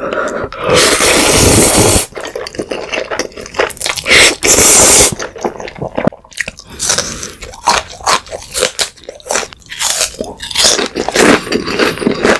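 A man eating jjapaguri, black-bean-sauce instant noodles, close to the microphone: two long loud slurps of noodles in the first five seconds, then wet chewing and smacking.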